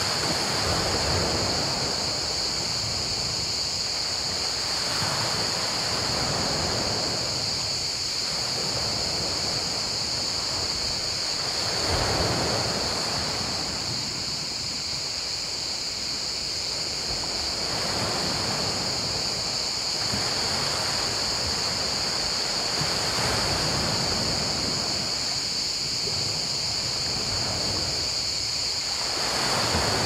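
Small sea waves washing onto a pebble beach, one swell every five or six seconds, over a steady high chorus of crickets.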